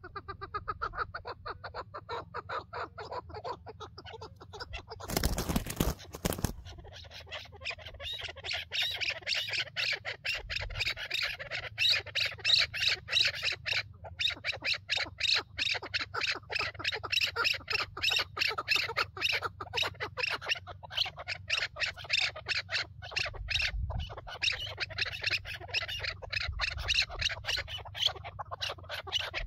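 Chukar partridges calling: a long run of rapid clucking notes, several a second, which grows louder and denser about seven seconds in and keeps going. A brief loud rush of noise lasting about a second and a half comes about five seconds in.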